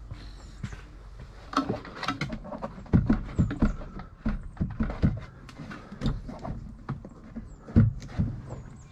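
Irregular knocks and clunks of hands handling the body and fittings in the front compartment of a 1991 Lotus Esprit, loudest about three seconds in and near the end.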